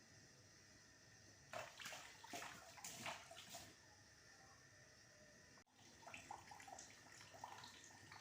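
Faint sound of water bubbling in a pot on a stove as it comes to the boil. Between about one and a half and three and a half seconds in there are a few louder rushes of bubbling. Small scattered bubble pops follow near the end.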